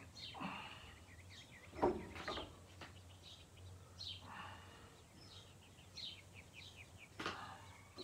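Small birds chirping in the background, with a sharp metal knock about two seconds in and another near the end as an adjustable wrench is worked on a seized, rusted bolt in a cast-iron farm disc.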